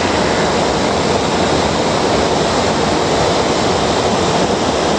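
Steady, loud rushing noise of a Cessna Caravan's cabin in flight, its Pratt & Whitney PT6A turboprop and the airflow blending into one even rush.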